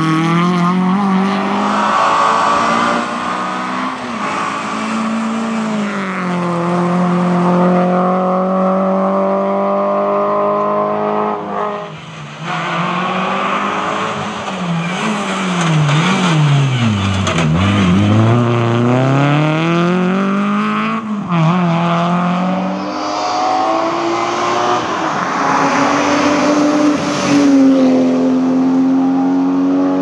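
Rally car engines, Renault Clios among them, at high revs, the note climbing and dropping back at each gear change. A little past halfway the revs fall right away and then climb again as the car pulls back up through the gears.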